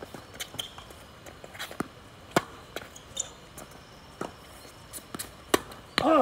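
Tennis rally on a hard court: sharp racket strikes on the ball and ball bounces at irregular intervals, with footsteps scuffing between them. A short falling shout near the end as the point finishes.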